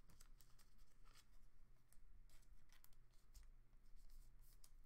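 Near silence: room tone with a faint low hum and a few soft ticks and rustles of a trading card being handled in the fingers.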